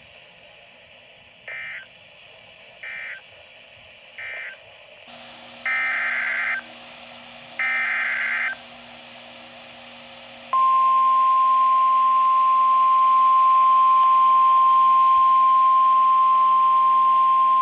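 Emergency Alert System data bursts: three short warbling end-of-message bursts, then, over radio hiss and hum, two longer header bursts. From about ten seconds in, the loud steady 1050 Hz weather-radio warning alarm tone sounds.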